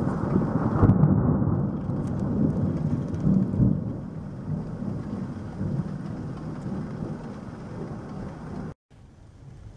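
Thunder rolling during a thunderstorm with rain: a deep rumble that peaks about a second in, swells again a few seconds later, then slowly fades. Near the end it breaks off, and quieter steady noise follows.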